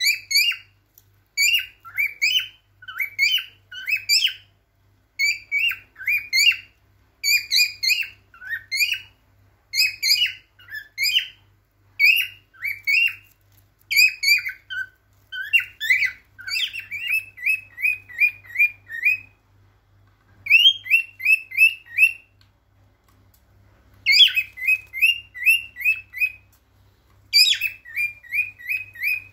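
Male cockatiel singing its courtship song: short warbling phrases of chirps and whistles broken by brief pauses. About halfway through the song changes to quick runs of a repeated note, about six a second.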